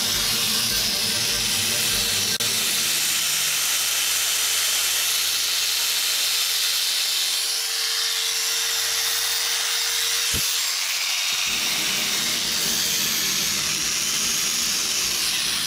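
Lister Stablemate cattle clipper's electric motor running steadily on a test run after its cord was fixed and its gear cleaned and relubed, with a high, hissing whir.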